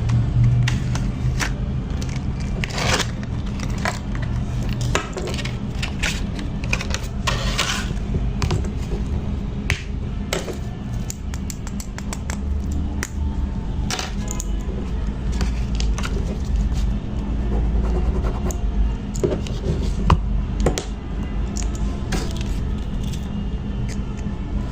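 Scattered clicks, taps and rustles of a boxed laptop and its packaging being handled and opened, over background music.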